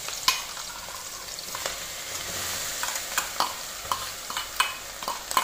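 Ginger, garlic and green chilli paste sizzling as it hits hot oil in an aluminium kadhai, a steady hiss, with several sharp clicks and taps as a spoon scrapes the paste from a steel bowl into the pan.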